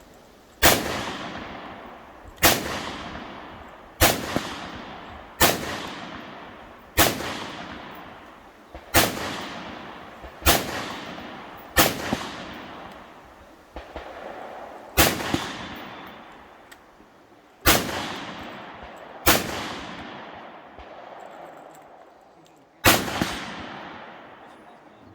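Rifle fired about a dozen times at an unhurried pace, the shots roughly one and a half to three seconds apart with a longer pause before the last. Each report is followed by a long echoing tail.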